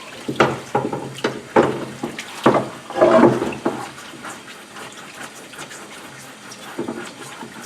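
Tap water running over an emulsion scoop coater trough, splashing unevenly as emulsion is rubbed off it by a gloved hand, then settling to a steadier flow about halfway through.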